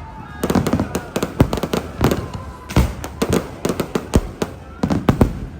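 Fireworks exploding in quick succession: a dense run of overlapping sharp bangs and crackles, with a short lull a little after two seconds in.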